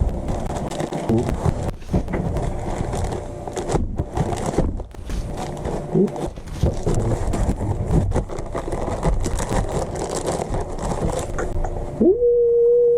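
Packaging being opened and handled: continuous rustling and crinkling with many small clicks and crackles. Near the end a person's voice rises into a short held 'ooh'.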